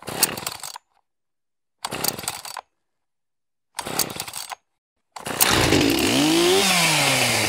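Chainsaw: three short bursts about two seconds apart, then it starts and runs continuously, its pitch rising and then falling as it revs up and back down.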